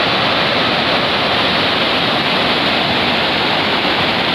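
Water pouring over the crest of a dam into the rocky river below: a steady, loud rush of falling water.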